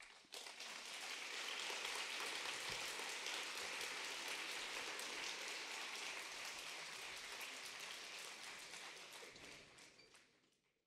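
Audience applauding, building up within the first second and fading out near the end.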